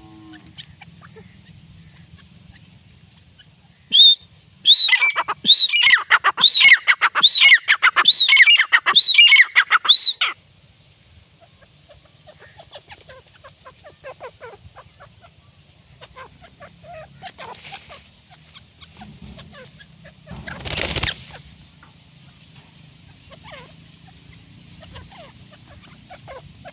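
Grey francolin calling: a loud run of about ten ringing, arched high notes, nearly two a second, lasting about six seconds. A brief rush of noise follows some ten seconds later.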